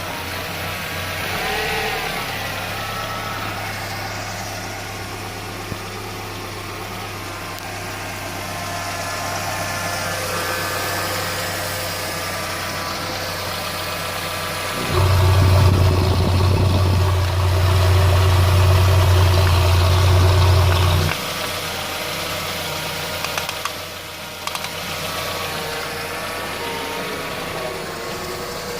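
1994 Ford Mondeo Mk1's 1.6 four-cylinder petrol engine idling rough, which the owner suspects is a faulty idle air control valve or MAF sensor. Midway it turns suddenly louder and deeper for about six seconds, then drops back to a steady idle.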